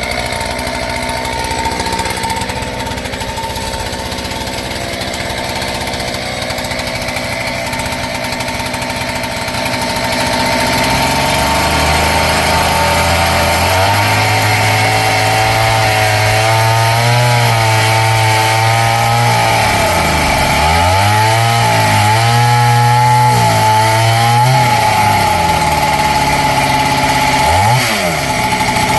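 Two-stroke engine of a kit-built clone chainsaw running just after a first-pull start: steady at low speed at first, then revved up about a third of the way in and held high. Its pitch wavers, dips and picks up again several times, with a sharp drop and quick recovery near the end.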